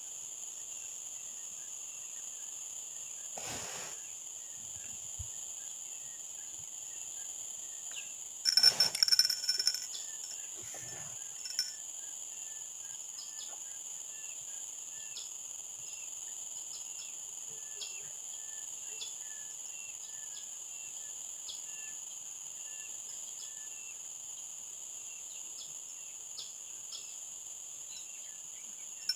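Steady high-pitched insect chorus, with a brief louder noise about eight and a half seconds in.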